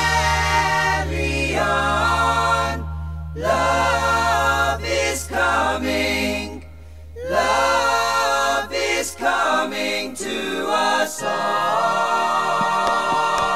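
Music: several voices singing in harmony over a held low note, with two short breaks.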